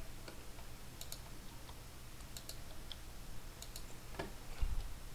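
Light, irregular clicks of computer keyboard keys and a mouse, some in quick pairs, over a faint steady low hum.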